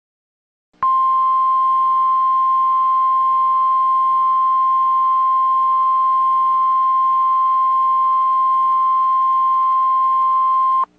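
Emergency Alert System attention tone: one loud, steady, high single-pitch beep that starts about a second in, holds for about ten seconds and cuts off abruptly. It signals that an emergency alert message is about to follow.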